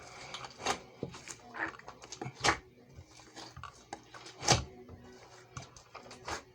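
Irregular clicks and knocks of small objects being handled and set down, two louder knocks about two and a half and four and a half seconds in.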